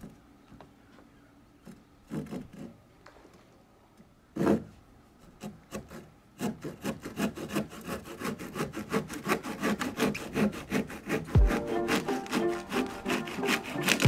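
Hand saw cutting through a wooden board. A few separate strokes start the cut, then quick, even back-and-forth sawing runs from about six seconds in.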